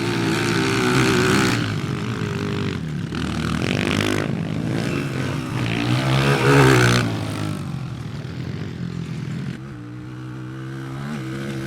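Small four-stroke pit bike engine revving up and down through the gears, with a loud high rev a little past the middle before it settles lower near the end.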